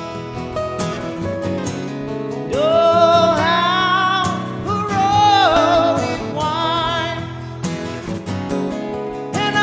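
Acoustic guitar music played live, with chords ringing under a lead melody line. The lead line comes in about two and a half seconds in, bends and wavers for a few seconds, then falls back.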